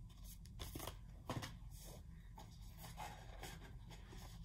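Faint handling of 7-inch vinyl singles in paper picture sleeves: a few soft rustles and taps, about a second in, over a low steady hum.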